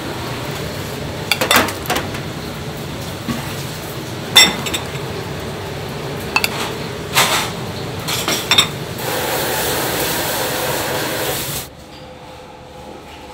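Ceramic bowls and plates clinking and knocking on a stainless steel counter, several separate sharp clinks over a steady kitchen din. Near the end a steady hiss runs for a couple of seconds, then cuts off to quieter room tone.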